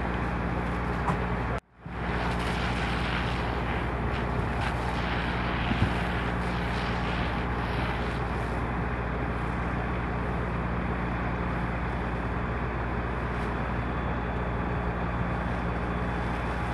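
Fire engine running steadily at the pump, a low engine hum under a constant rushing noise of the fire and hose stream. The sound cuts out briefly about a second and a half in.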